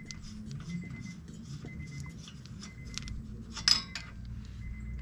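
Loosened lug nuts being spun off a steel wheel's studs by hand, with small metal clicks and clinks as the nuts are gathered in the hand. One louder clink comes a little before four seconds in.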